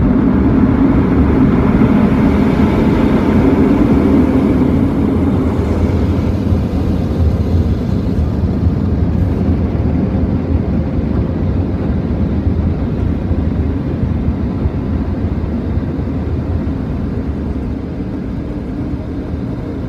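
Mark VII rollover car-wash dryer blowers running, a steady rush of air heard from inside the car, slowly growing quieter over the last several seconds.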